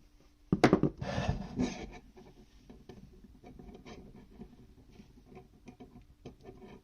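Handling noise: a sharp knock about half a second in, then about a second of rubbing and scraping, then faint scattered ticks.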